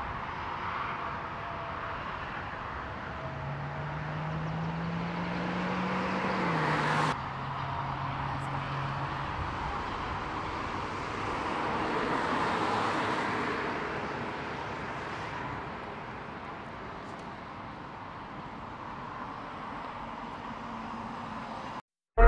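BMW 4 Series coupé driving by, its engine note rising as it accelerates. Engine and tyre noise swell as the car passes close about twelve seconds in. The sound cuts off abruptly just before the end.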